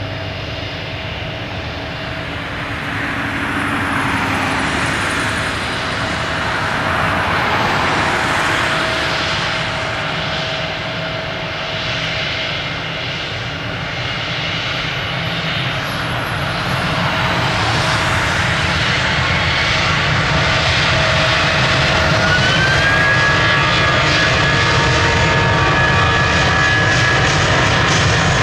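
Airbus A320's twin IAE V2500 turbofan engines spooling up for takeoff, a steady jet engine noise that grows louder. A high whine rises in pitch about three quarters of the way through and then holds steady.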